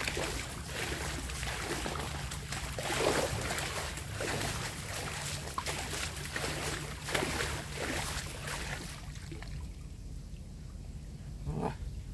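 Water splashing and streaming out of a large mesh net fish trap as it is shaken and heaved in shallow water, in irregular surges; the splashing eases off about nine seconds in.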